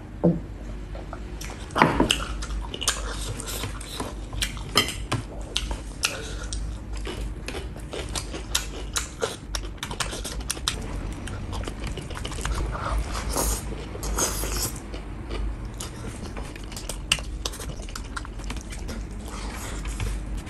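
Close-miked chewing and smacking of mouthfuls of rice eaten by hand, a dense run of irregular wet clicks, with fingers scraping rice across a stainless steel tray. A swallow of drink at the very start.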